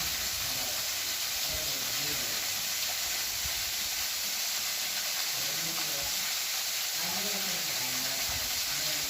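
Waterfall rushing: a steady, even hiss of falling water, with faint voices in the background.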